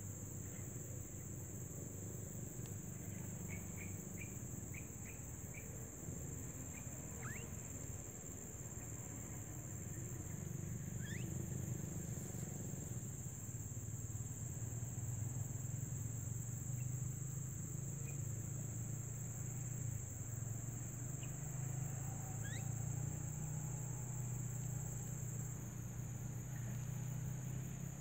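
Steady high shrill of insects, with a low steady rumble underneath that grows louder about a third of the way in. Birds give a quick run of short chirps about four seconds in and a few rising whistles now and then.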